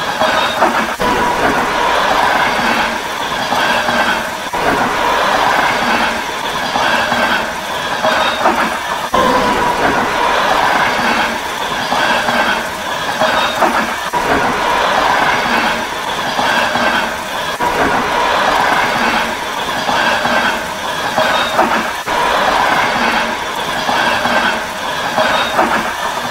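Passenger train coaches rolling steadily past, their wheels clacking in a regular rhythm over the rail joints. A thin squeal of wheel on rail comes in now and then.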